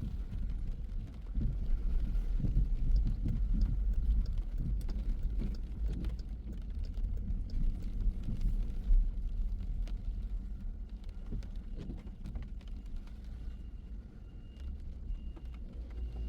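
A car driving on a wet road: steady low rumble of engine and tyres, with scattered small ticks. Near the end a faint high beep repeats at an even pace.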